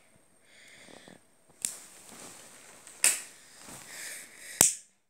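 Disposable gas lighter struck three times, each strike a sharp click followed by up to about a second of hissing.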